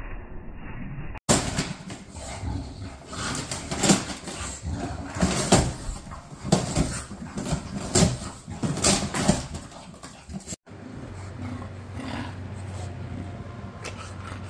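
An English bulldog tearing at and chewing a cardboard box: a dense, irregular run of rips, crunches and scrapes of cardboard, with the dog's own breathing noises among them. In the last few seconds there is a steady low hum from an electric fan.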